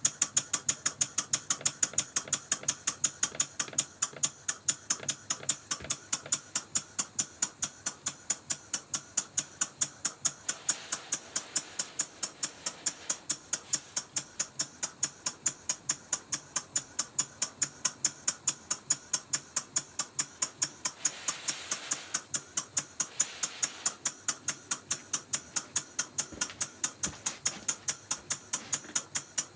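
Single-cylinder Rob Roy model vertical steam engine running on compressed air, beating out a quick, even rhythm of sharp exhaust puffs with a hiss over it.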